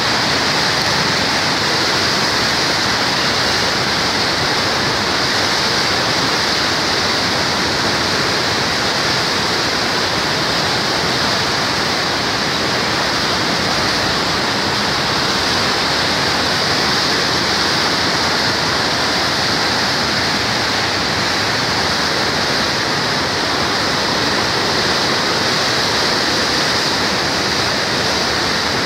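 Floodwater of the Saptakoshi (Koshi) river rushing and churning below the Koshi Barrage: a loud, steady, unbroken rushing of high, turbulent water in spate.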